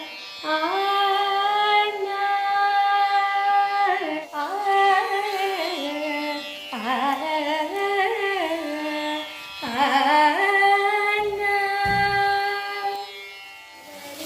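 A high voice singing Carnatic-style vocal practice, holding long notes with sliding, wavering ornaments, broken by short breaths about four and ten seconds in.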